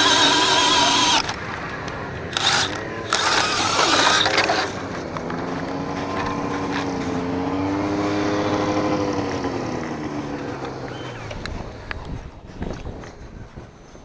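Snowmobile engine running fast with rushing air noise, easing off after about a second, then two short surges of throttle. It then settles to a steady idle as the machine stops, and dies away about eleven seconds in, followed by a few light clicks.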